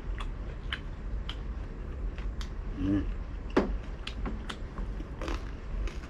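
Close-up chewing of crispy fried pork belly: a string of short crunches and wet mouth clicks, with a brief hummed sound about three seconds in and a harder knock just after.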